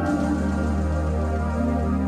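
Slow ambient music of held, organ-like keyboard chords, with a new chord coming in at the start.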